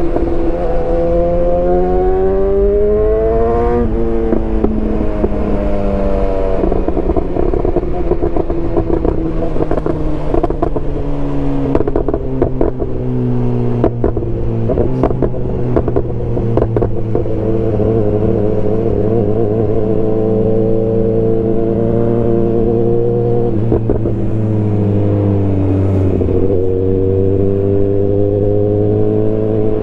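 BMW S1000R's inline-four engine running loud, its pitch climbing for about four seconds and then dropping suddenly. It then holds a steadier, slowly shifting pitch, with another dip and climb near the end.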